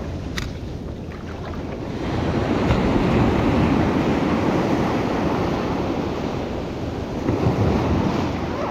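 Surf washing onto a sandy beach, with wind buffeting the microphone. The wash swells louder about two seconds in and again near the end, and there is one sharp click just after the start.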